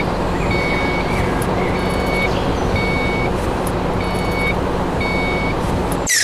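Reversing alarm beeping about once a second, each beep short and high-pitched, over a steady engine-like noise. A falling whoosh cuts in at the very end.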